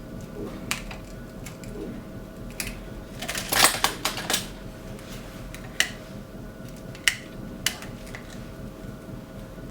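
Hand work pulling the heat-softened plastic frame off a cracked iPhone 6 Plus glass panel: scattered sharp clicks and taps, with a short burst of scraping about three and a half seconds in, over a faint steady hum.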